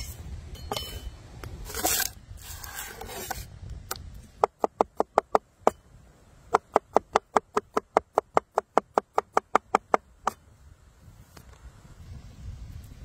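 A large kitchen knife chopping garlic on a wooden cutting board in fast, even strokes of about six a second. There are two runs, one about four seconds in and a longer one from about six and a half to ten seconds. A few heavier knocks come before the runs.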